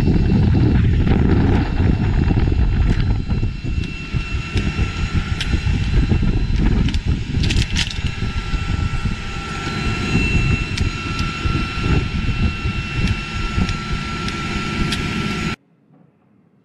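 Steady aircraft turbine whine over a loud, fluctuating rumble, with sharp metallic clicks from a door-mounted machine gun being worked by hand. The noise cuts off suddenly near the end.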